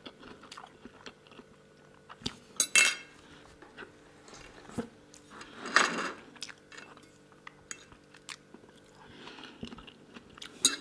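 A metal fork clinking and scraping on a ceramic plate, with chewing: scattered light clicks and two louder sounds about three seconds apart.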